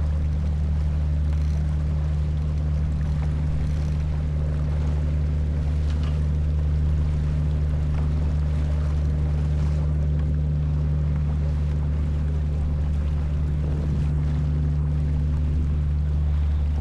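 A boat engine running steadily at constant speed, its low hum unchanging, with water and wind noise over it.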